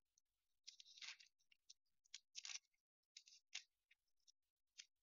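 Faint, irregular rustles and short scrapes of paper, several in a row, as the pages of a Bible are turned to find a passage.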